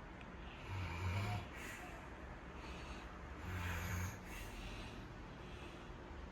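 A sleeping pet snoring: two low snores about three seconds apart, each followed by a breathy exhale.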